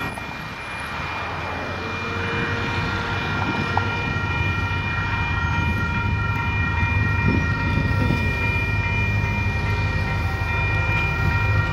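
Railroad crossing warning bell ringing steadily while a Union Pacific freight train approaches, the low rumble of its diesel locomotive growing gradually louder.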